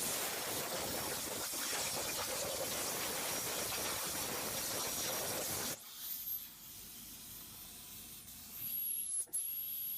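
Hypertherm plasma torch cutting at 300 amps: a loud, steady hiss of the arc that cuts off suddenly about six seconds in, leaving a fainter hiss, then returns briefly near the end.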